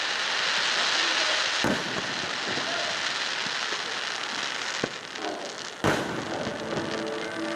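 Aerial fireworks: a dense hissing crackle for the first couple of seconds, then three sharp shell bursts, about 1.5, 5 and 6 seconds in, the last the loudest.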